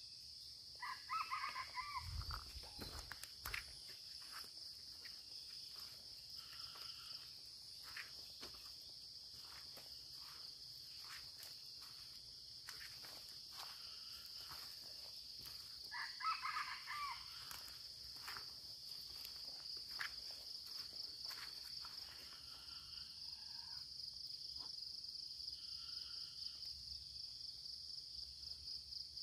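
Red junglefowl crowing: two clear crows, about a second in and again about halfway through, with fainter crows later. A steady high insect drone runs underneath.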